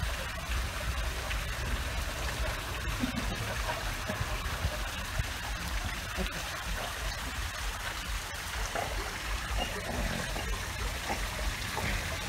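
Swimming-pool water splashing and lapping steadily as a dog paddles with a man wading alongside.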